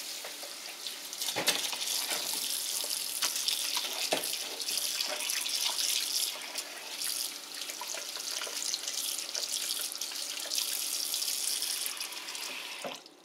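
Kitchen tap running steadily into a plastic bowl as pollock fillets are rinsed by hand, the water splashing over the fish, with a few light knocks against the bowl. The water shuts off near the end.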